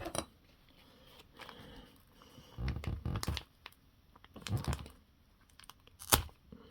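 Small RC crawler parts being handled and fitted by hand, an aluminum link riser going onto the rear axle: a handful of scattered clicks and knocks with some light rustling, the densest stretch about three seconds in.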